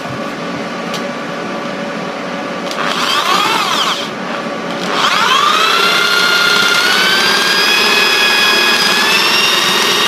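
Electric drill driving a jigsaw adapter: a short trigger pulse spins the motor up and down about three seconds in, then from about five seconds it spins up to a steady high whine that holds to the end.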